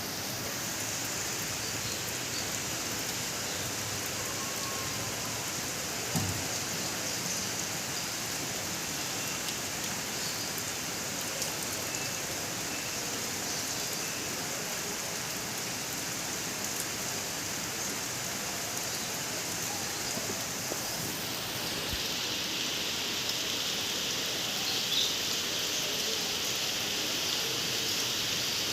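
Steady rain falling, a continuous hiss of drops on surfaces. About 21 seconds in, the hiss turns brighter and sharper. A single low thump sounds about six seconds in.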